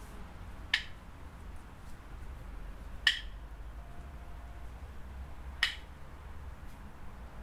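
Three sharp clicks, about two and a half seconds apart, over a low steady rumble.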